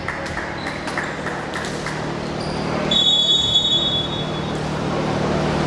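A volleyball referee's whistle blows once, a steady high note of about a second, roughly three seconds in, the signal for the server to serve. Underneath are the hum and echo of a gym hall.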